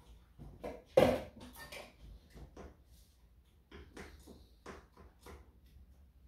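Irregular clinks and knocks of a utensil against a small saucepan on the stove as blueberry sauce is stirred, the loudest knock about a second in and one brief metallic ring about four seconds in.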